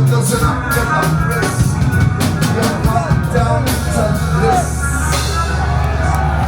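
Live band playing loud through a concert PA: drums and bass in the closing bars of a song. The drum hits stop about five seconds in while a low bass note rings on.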